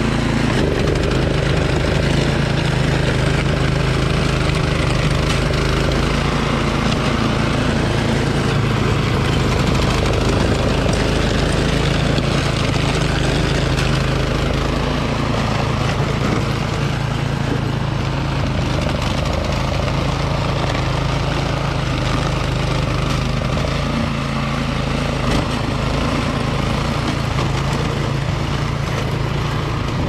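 Troy-Bilt Storm 2410 two-stage snowblower's single-cylinder PowerMore engine running steadily under load as it cuts and throws snow.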